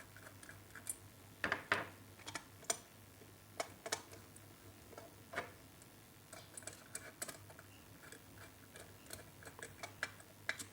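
Scattered small clicks and taps of a screwdriver and wire being worked into the switch's output terminal of a plastic 16 A 5-in-1 power plug, unevenly spaced, over a faint steady low hum.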